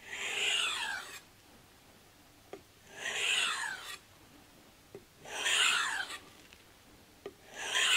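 Knife blade drawn across a leather strop charged with 1-micron diamond emulsion, finishing and deburring the edge at a fixed 15° angle: four scraping strokes, each about a second long and roughly two and a half seconds apart, with faint ticks between them.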